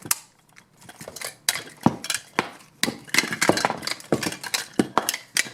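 Plastic pieces of a Rusty Rivets Botasaur snap-together toy being pulled apart and set down: a quick, irregular run of sharp clicks and clacks.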